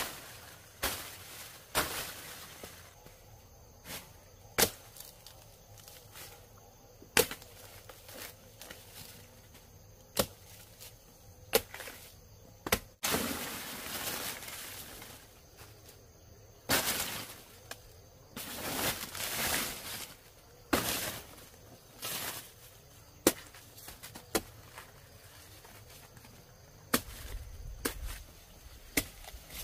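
Irregular sharp chopping blows, roughly one to two seconds apart, as of a blade cutting through plant stalks, with a few longer rustling, scraping stretches in between.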